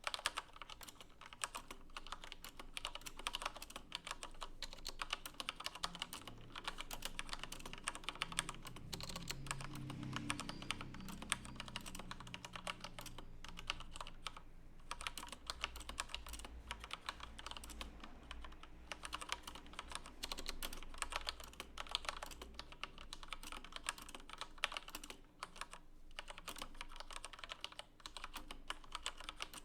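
Fast, continuous typing on a Corsair K63 mechanical keyboard with linear Cherry MX Red switches: a dense, irregular clatter of keystrokes with no pause.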